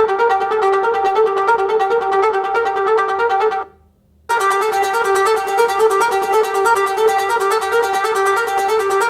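Fast, rhythmic instrumental music with rapidly repeating pitched notes, cutting out briefly about three and a half seconds in and resuming just over half a second later.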